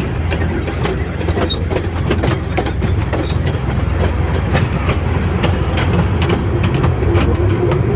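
Tourist train riding along its track, heard from on board: a steady low engine rumble with frequent rattles and clacks from the carriages and rails.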